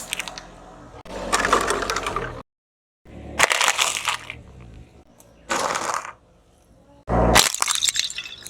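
Brittle objects cracking and breaking as they are crushed under a car tyre, heard as several separate crunching bursts with a low rumble beneath some of them.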